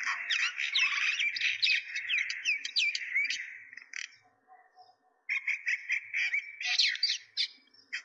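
Many small birds chirping and twittering together, with quick rising and falling calls overlapping. The chatter dies away for about a second midway, then starts again abruptly.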